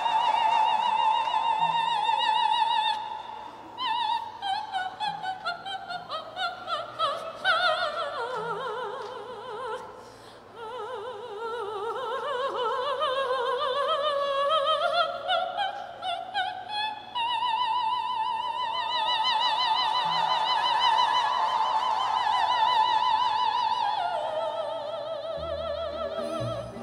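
Operatic soprano singing into a microphone with wide vibrato: long high held notes, a slow descent in pitch through the middle that climbs back up, then high sustained notes again that settle lower near the end.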